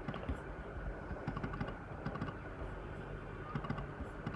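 Scattered light clicks from a computer keyboard in a few quick groups, over a low steady hum.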